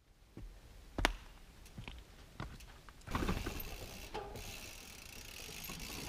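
A Transition Patrol carbon mountain bike rolling down a wooden boardwalk and into a dirt berm: tyre rumble on the planks and dirt with mechanical ticking and rattles, after a few scattered clicks in the first seconds.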